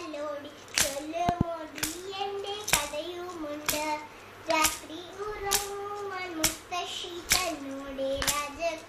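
A voice singing a Malayalam poem in a slow, held-note chant, kept in time by hand claps about once a second.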